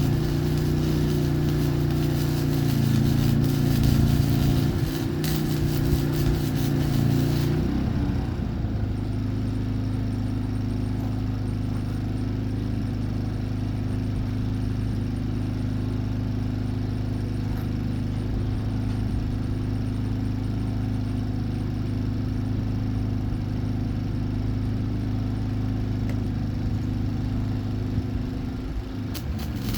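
Wire-feed (MIG) welder arc crackling and hissing while welding the seams of a layered steel billet, stopping abruptly about seven and a half seconds in. A steady machine hum runs underneath and carries on after the arc stops.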